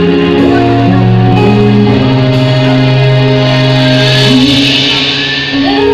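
A live band playing a song: electric guitar and bass guitar holding long notes over drums.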